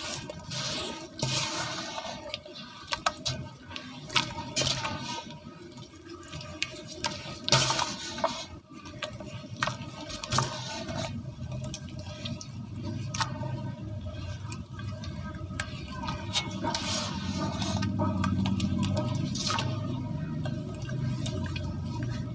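Hands squishing and sloshing watery cement slurry in a basin: irregular wet splashes and squelches as lumps are squeezed and dropped back into the liquid.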